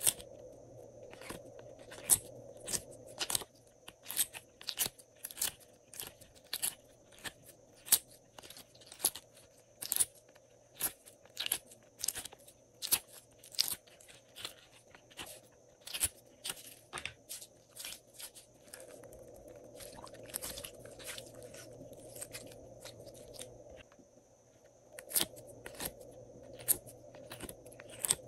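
Fingers pushing set slime pieces out of a silicone mold and squeezing glossy slime: a run of sharp, sticky clicks and crackles, about one or two a second.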